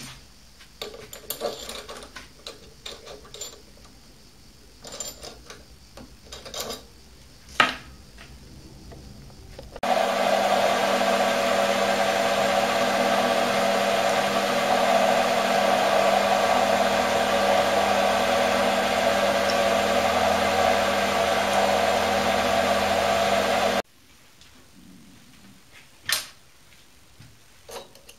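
Scattered clicks and a few sharp knocks of metal parts being handled and set up, then the Optimum D180x300 Vario mini lathe's motor and spindle running steadily with a drill bit in the collet, starting and stopping abruptly about ten seconds in and about ten seconds before the end. Light clicks follow, with one sharp knock.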